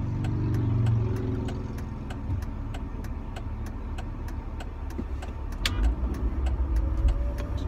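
Car engine speeding up as the car pulls away from a stop, loudest about a second in, then running steadily, heard from inside the cabin. A faint regular ticking runs under it.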